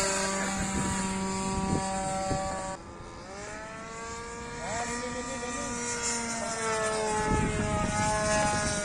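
Radio-controlled model warbird airplane's propeller motor droning in flight. About three seconds in the note drops and quietens, then it swells again and its pitch slowly bends as the plane passes.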